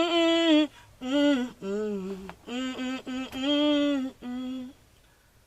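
A man's voice humming a melody in a run of short held notes, trying out the pitch for a song's hook. It stops near the end.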